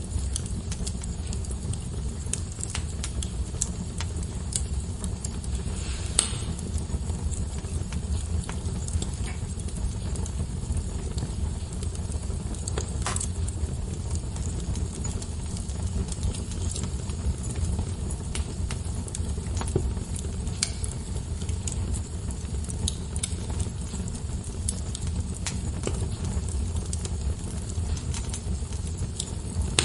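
Wood fire crackling in a fireplace: a steady low rumble of flames under a constant scatter of small crackles, with louder pops about six and thirteen seconds in.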